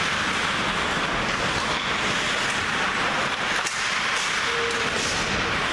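Ice hockey play on an indoor rink: a steady hiss of skate blades on the ice, with a few faint clacks of sticks and puck.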